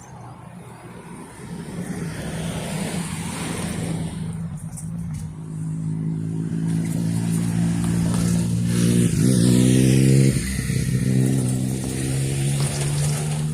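Engine of a passing motor vehicle growing louder, peaking about two-thirds of the way in with its pitch shifting as it goes by, then easing off.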